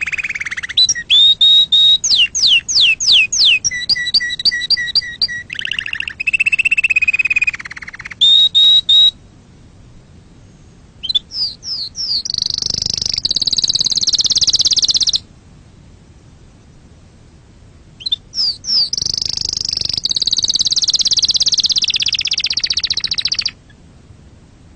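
Domestic canary singing: phrases of fast trills and quick sweeping whistles, broken by two pauses of a few seconds, the later phrases long high rolling trills.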